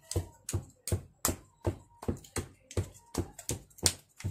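A steady series of sharp taps or slaps, about a dozen at roughly three a second, each with a dull low thump.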